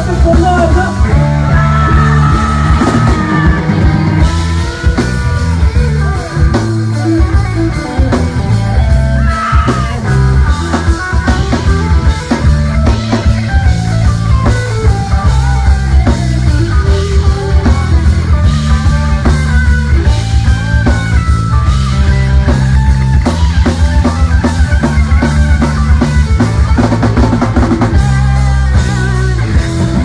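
A live rock band playing loud: electric guitar over a drum kit and a heavy bass line, with a steady beat.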